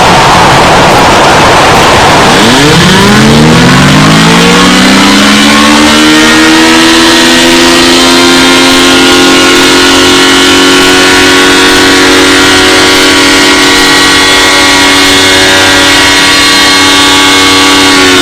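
Mock emergency alarm at clipping level: harsh static-like noise, then about two and a half seconds in a low tone slides upward and settles into a steady, buzzing alarm drone with many overtones.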